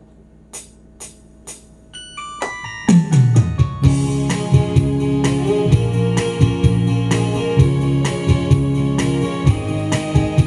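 Instrumental introduction to a Korean trot song: a few sharp count-in ticks, a quick run of descending keyboard notes, then, about three seconds in, the full accompaniment comes in with keyboard, bass and a steady drum beat.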